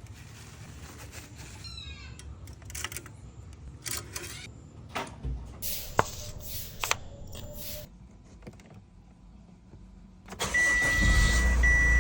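A few clicks and knocks, then about ten seconds in the Chevrolet Captiva's diesel engine starts and runs with a low rumble, while a steady high electronic chime sounds with short breaks.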